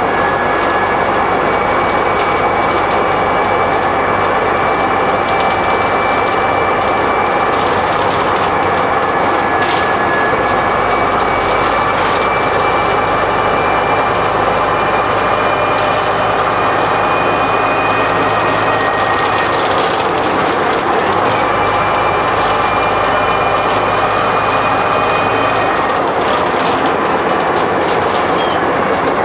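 Bristol VR double-decker bus heard from the upper deck while under way: a steady low engine drone with a high whine over it, and frequent rattles from the body and fittings. The whine breaks off briefly about twenty seconds in, and the drone and whine change again near the end.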